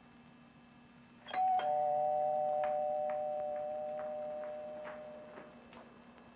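Two-note doorbell chime: a higher ding and then a lower dong, ringing out together and fading away over about four seconds.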